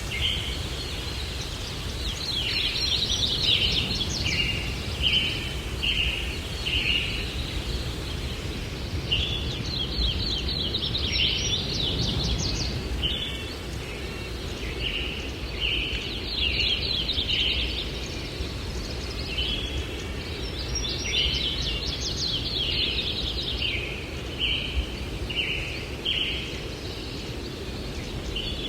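A songbird repeating one song phrase about every six or seven seconds: a quick run of high notes, then several separate shorter notes. Under it runs a steady low rumble of breeze.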